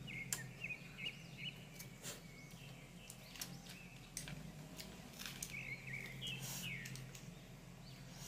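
Small birds chirping over and over in the background, faint, with a few sharp clicks scattered through.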